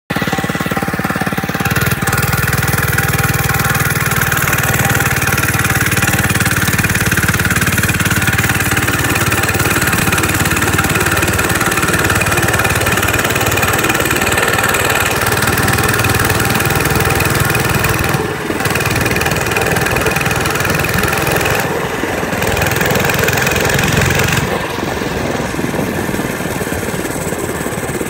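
Mini bike's small engine running while the bike is ridden, now going after a kink in its fuel line was taken out. The engine note shifts a few times, with a brief dip about two-thirds through and a slightly quieter stretch near the end.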